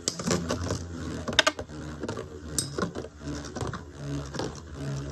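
Two metal Beyblade tops spinning in a plastic stadium with a steady buzzing whir, clashing and scraping against each other in a series of sharp clicks and knocks.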